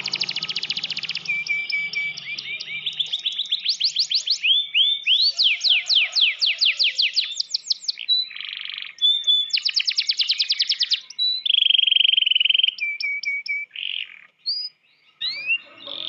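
Domestic canary singing a long, varied song: fast trills of rapidly repeated notes, rising sweeps and a held buzzy note, with a short break near the end.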